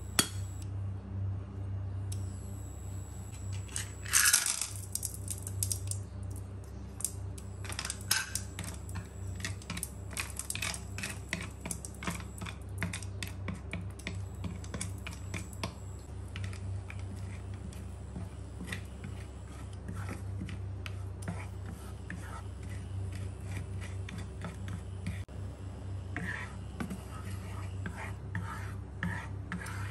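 Rock sugar lumps clattering into a nonstick wok about four seconds in, then many sharp clicks and scrapes as a wooden spatula pushes the lumps around in the oil while they melt slowly toward caramel. A steady low hum runs underneath.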